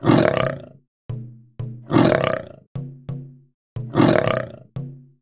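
Puma (cougar) calling: three harsh snarls about two seconds apart, each lasting under a second, over light background music of plucked notes.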